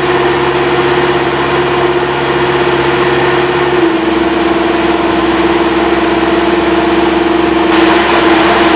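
Marsh Master MM-2 tracked amphibious vehicle's engine running steadily at a constant speed while driving its hydraulic anchor installer. Its tone changes slightly about four seconds in.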